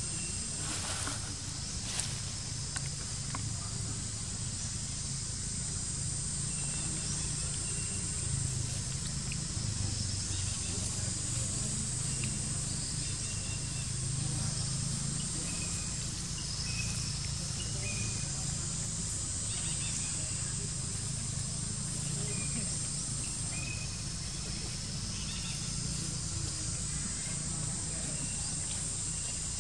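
Steady high-pitched insect chorus, with a low steady hum underneath and a few brief faint chirps scattered through.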